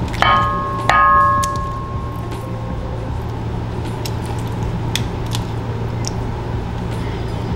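Two clanks of a metal utensil against a metal cooking pot, a little under a second apart, the pot ringing after each; the second is louder and rings for about a second. A steady low hum lies underneath, with a few light clicks later.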